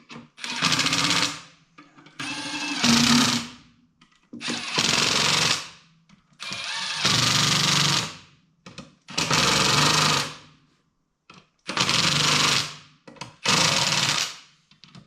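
Impact wrench run in about seven short bursts of a second or so each, snugging down the bolts on a water pump housing lightly, before final tightening by hand wrench.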